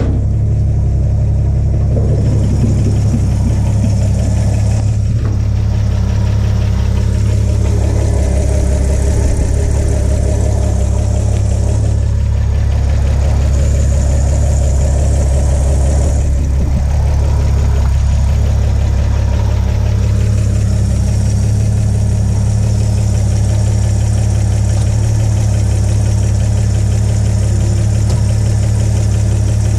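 1951 GMC 100 pickup's inline six-cylinder engine idling steadily.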